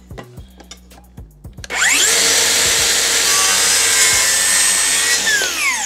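DeWalt Flexvolt DCS575 circular saw spinning up just under two seconds in and making a 45-degree bevel cut across a timber board, then winding down near the end.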